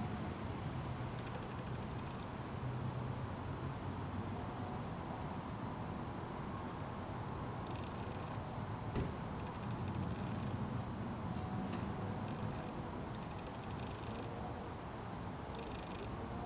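Steady, high-pitched insect chorus, with a lower pulsing insect call coming and going in spells of about a second, over a low background rumble. A single click about nine seconds in.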